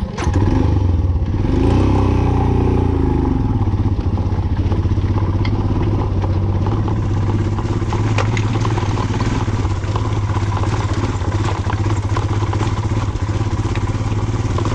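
Dual-sport motorcycle engine running steadily. The revs rise and fall about two seconds in, and a few sharp clicks and bits of clatter come through over the engine.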